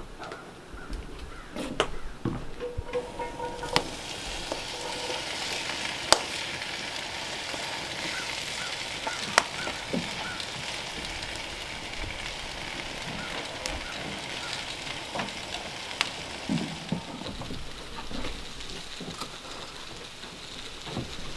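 Food frying in oil in a cast iron skillet over an open fire: a steady sizzle that swells about four seconds in, with occasional sharp pops.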